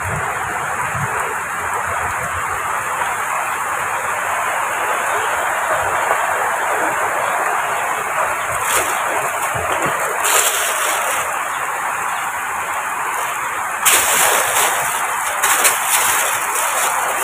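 Heavy rain falling in a steady hiss, with a few short, louder noises about nine, ten and fourteen seconds in.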